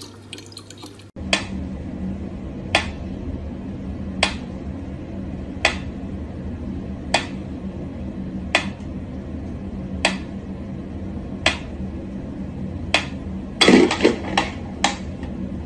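Mechanical pyramid metronome ticking slowly, one sharp click about every second and a half, over a low steady hum. Near the end comes a quick run of several clicks and knocks.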